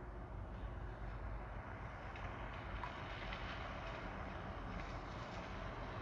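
Steady outdoor background noise: a low rumble with a hiss that grows a little louder about two seconds in.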